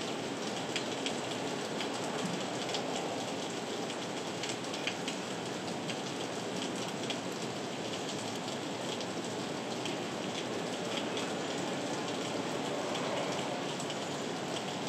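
Heavy rain falling steadily: a dense, even hiss dotted with the sharp ticks of single drops striking close by.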